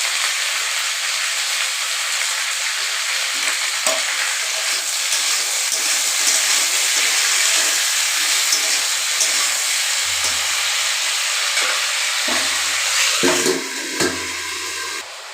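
Potatoes, raw banana, green chillies and beans sizzling in a pan in a little oil: a steady frying hiss. It grows quieter near the end, with a single click.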